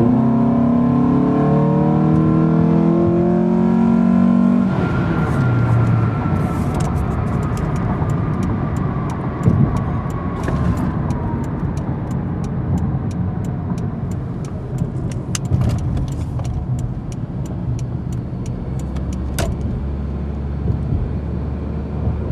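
Honda K24 four-cylinder engine with an open K&N intake and no intake resonator, accelerating moderately: the pitch rises for about four and a half seconds, then drops as the automatic gearbox shifts up. The car then cruises with a steady engine and road noise.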